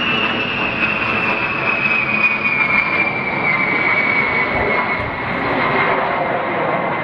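Boeing 707 with four Pratt & Whitney JT3D turbofans flying low overhead: a loud, steady jet roar with a high whine that slides slowly down in pitch as the plane passes.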